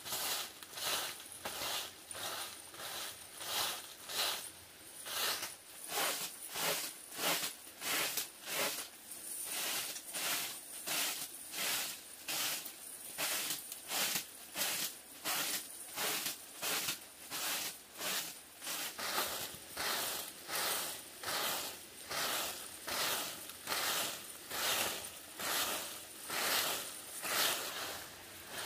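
Broom made of bundled dry grass sweeping packed dirt ground: a steady run of brushing swishes, about two strokes a second.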